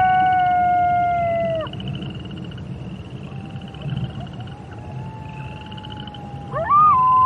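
Wolves howling: one long steady howl that sags slightly and ends about two seconds in, a fainter howl through the middle, and a louder howl sweeping up near the end. A pulsing trill runs behind them.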